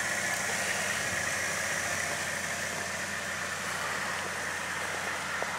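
1998 GMC Sonoma pickup's engine idling steadily.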